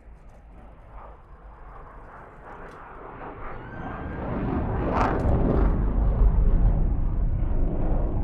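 Military jet heard from about 2 km away: a deep rumble that builds from about three seconds in to a loud, low roar and stays loud to the end.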